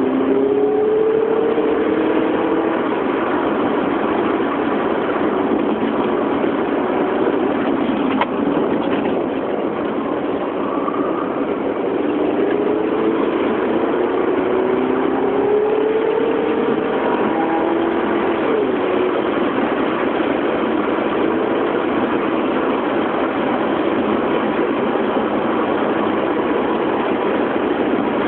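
Car engine heard from inside the cabin while driving, its note rising in pitch several times as the car accelerates, over steady road and wind noise.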